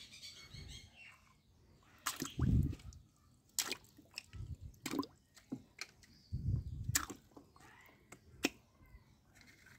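Small splashes and drips of muddy water in a wash basin as small plastic toy cars are dropped in and handled, with scattered sharp clicks and a couple of dull bumps.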